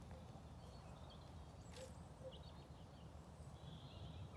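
Near silence: a faint low rumble with a few faint, short high chirps.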